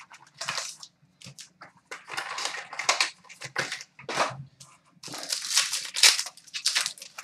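Hockey card box and pack being torn open by hand: irregular bursts of ripping and crinkling cardboard and wrapper, loudest in the second half.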